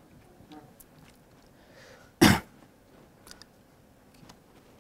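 A single short, loud cough about two seconds in, over faint room tone with a few small clicks.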